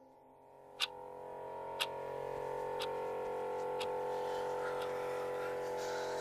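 Clock ticking about once a second, over a steady hum that swells in about a second in and holds.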